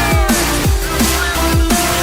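Electronic dance music with a heavy, steady beat: deep kick drums falling in pitch about twice a second under synth notes.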